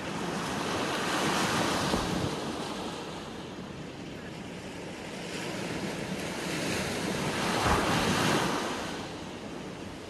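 Sea waves washing and splashing, swelling up twice, about a second in and again near eight seconds.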